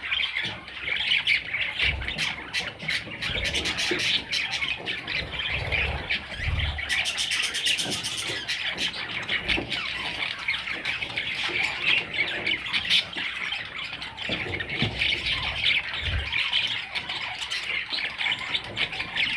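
Budgerigars chattering and squawking continuously, many short overlapping calls from several birds at once.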